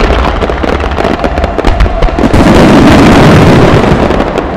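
Fireworks barrage with many shells bursting in rapid succession, loud throughout. The pops crowd together about two and a half seconds in into one continuous rush of bursts and crackle, then ease toward the end.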